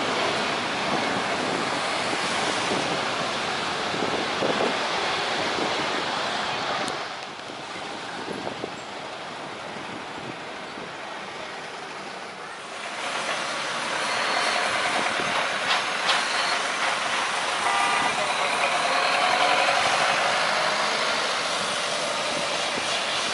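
Jet airliner engines on the runway after landing: first an Airbus A330 rolling out, its noise dropping to a quieter spell about seven seconds in. From about thirteen seconds comes the louder noise of a Boeing 737-800's CFM56 turbofans, with a steady whine.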